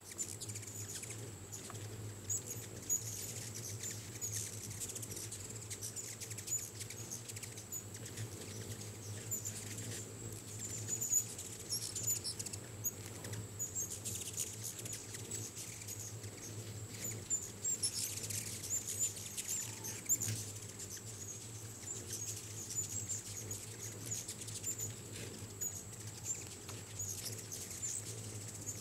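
A crowd of hummingbirds at feeders: a constant scatter of rapid high chip calls and twitters, with quick whirring wing sounds as birds dart close past. The busiest stretches come about halfway through and again near two-thirds of the way.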